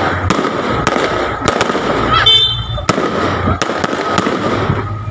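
Aerial fireworks shells bursting overhead: repeated sharp bangs, roughly one a second, over a continuous crackling from the burning stars.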